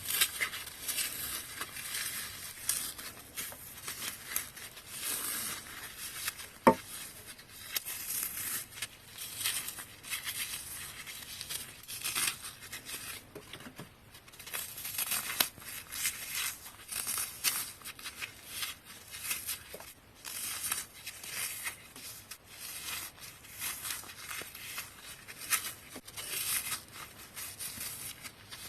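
Dry floral foam being crushed: a dense, crunchy crackling in quick repeated bursts, with one sharp click about seven seconds in.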